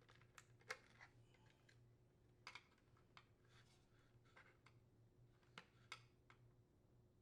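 Faint, scattered small clicks of wire connectors being pulled off the terminals of a dishwasher door latch, over a faint low hum.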